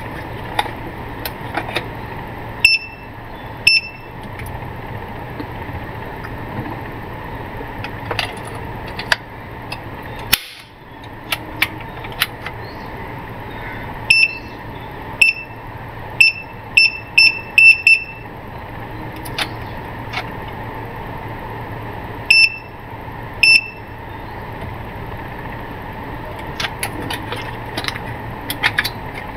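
Short, high beeps from a Mastech MS2128A digital clamp meter's buzzer, about eleven in all, with a quick run of seven about halfway through, as its function dial and buttons are worked. Between the beeps come light clicks of the plastic case being handled.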